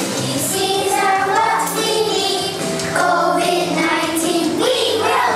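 Children's song: a group of children singing with instrumental backing music.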